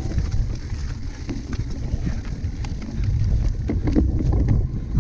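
Wind buffeting the microphone of a camera on a cyclocross bike being raced, with scattered clicks and rattles from the bike over rough ground; the rumble grows louder and the clicks thicker about halfway through.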